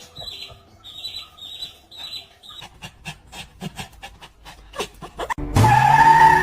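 A dog panting quickly and rhythmically for a few seconds, then loud music cutting in suddenly near the end.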